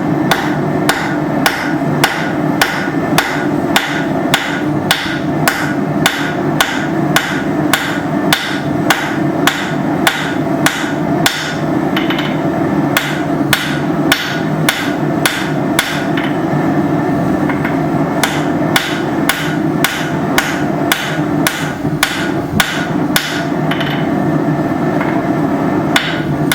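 Blacksmith's hammer striking a hot bar on an anvil, about two blows a second with a few brief pauses, as the end of a banister hook is tapered and fanned out. A steady roar runs underneath.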